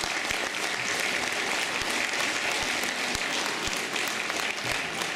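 Audience applauding, many hands clapping steadily at the close of a dance.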